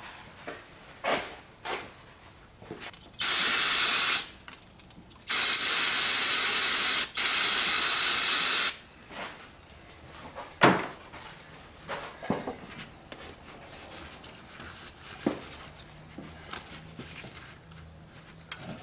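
Aerosol spray can hissing in two bursts, about a second and then about three seconds, as spilled brake fluid around the master cylinder is cleaned off. A few light knocks follow.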